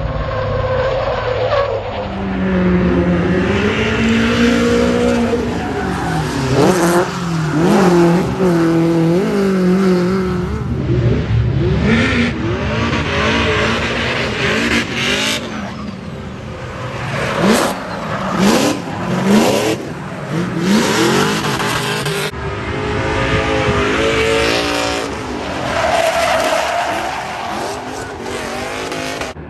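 Drift cars sliding sideways at full throttle, their engines revving up and down at high rpm over the squeal of spinning tyres, across several passes.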